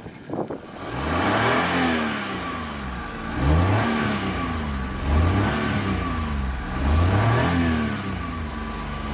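Car engine catching after a brief crank, then revved over and over by pumping the accelerator pedal: the engine note rises and falls about every two seconds.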